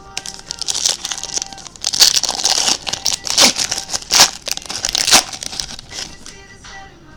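A sealed box of trading cards being torn open by hand: wrapping crinkling with several sharp tearing rips, the loudest in the middle, settling down near the end.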